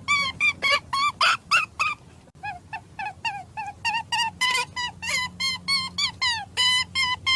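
A rapid series of short, high-pitched animal calls, about three to four a second. Most calls hold one pitch and some drop at the end. A brief pause comes about two seconds in, followed by a run of lower, falling calls.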